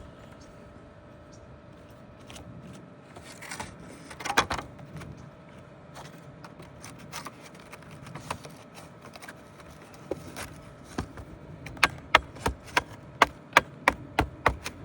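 Hammer tapping on cedar roof shakes and nails: scattered knocks and a brief scraping rustle, then a quick run of sharp taps, about three a second, near the end.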